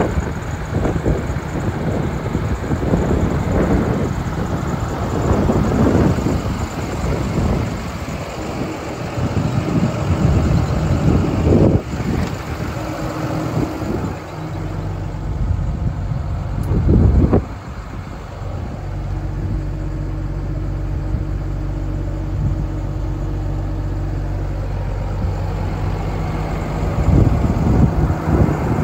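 Wind buffeting the microphone for about the first half, then a steady low diesel engine idle, the Cummins ISB in a 2018 International 4300 truck. There are two sharp knocks around the middle.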